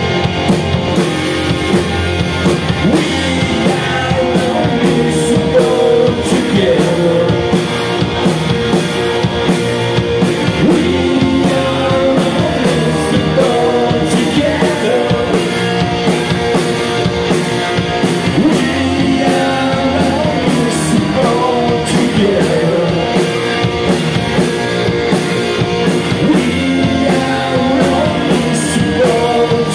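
A rock band playing live: two electric guitars, electric bass and a drum kit keeping a steady beat, with a man singing lead into the microphone.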